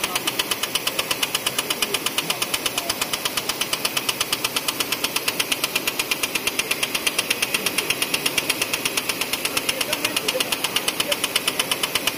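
High-speed label paper die-cutting machine running at speed, giving a fast, even clatter of strokes as it cuts and delivers label sheets.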